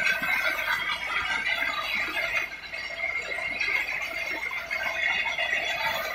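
Belt grinder running with a knife handle pressed against the moving sanding belt: a steady, high grinding squeal that wavers as the handle is worked against the belt.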